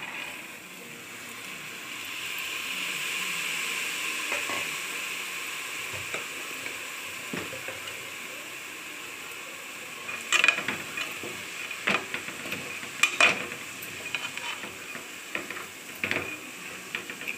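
Chickpeas tipped into hot onion-tomato masala in a pressure cooker, sizzling steadily. In the second half a slotted spatula scrapes and knocks sharply against the cooker's metal sides a few times as they are stirred in.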